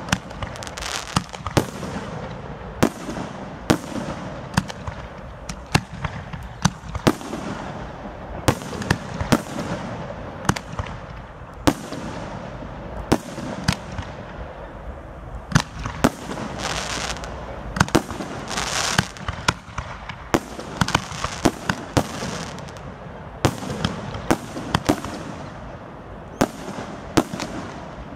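Fireworks display: aerial shells bursting in a rapid, irregular run of sharp bangs, about one or two a second, over a continuous wash of noise between them.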